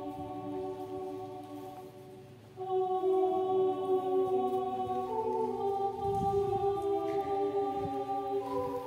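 A choir singing slow, sustained chords, each held for a long time before moving to the next. One chord fades out about two and a half seconds in, and a fuller chord begins right after.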